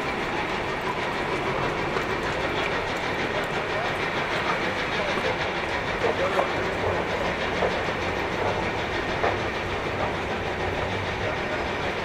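Steady noise of a busy outdoor transit area, with people moving about and a few light knocks, most of them between about six and nine seconds in.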